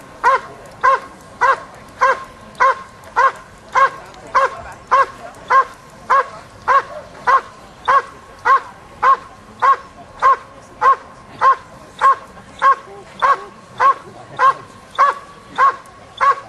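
Protection dog doing the hold and bark at the blind: it barks steadily and rhythmically at the decoy hidden inside, about one and a half to two barks a second without a break, showing it is holding the helper in place.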